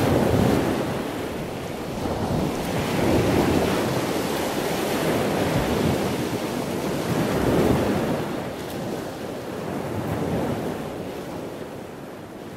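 Ocean waves washing onto a shore, the surf swelling and falling back every three to four seconds.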